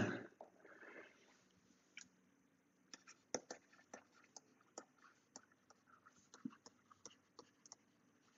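Faint, irregular ticks of a stylus tip tapping and dragging on a tablet's glass screen while words are handwritten, a few ticks a second, starting about two seconds in.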